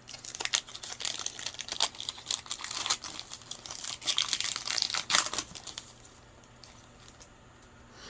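A foil trading-card pack wrapper being crinkled and torn open, a busy run of crackles for about six seconds that then stops.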